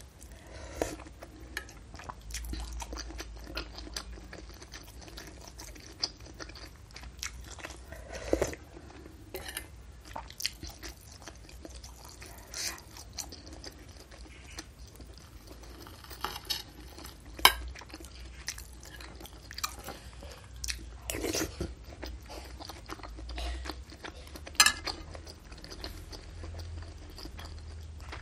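Close-miked chewing and biting of beef-tendon meatball soup: wet mouth clicks and crunchy crackles, with a couple of louder sharp clicks, one past halfway and one near the end.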